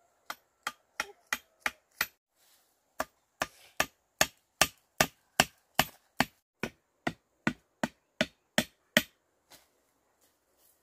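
A short-bladed hand tool struck again and again into the ground: about twenty sharp, even blows at roughly two and a half a second, with a short pause about two seconds in, stopping shortly before the end.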